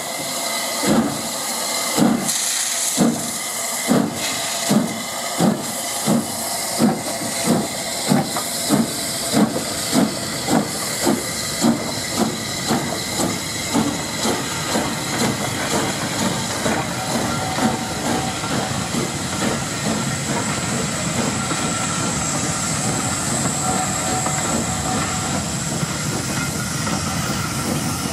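Southern Railway S15 class 4-6-0 steam locomotive No. 847 pulling away with its train: exhaust chuffs start about a second apart and quicken to about two a second, over steam hissing around the cylinders. About halfway through, the beats blend into the steady running noise of the coaches rolling past.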